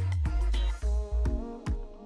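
Background music: an upbeat track with a heavy bass line, drum hits and a melody.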